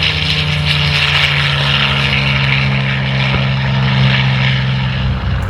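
Propeller and six-cylinder Lycoming piston engine of a SIAI-Marchetti SF-260 droning steadily in flight. The drone dips slightly in pitch about a second in and cuts off abruptly near the end.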